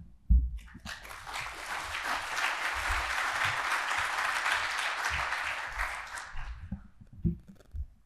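Audience applauding for about six seconds, then fading out. A low thump comes just before the clapping starts, and a few soft knocks follow near the end.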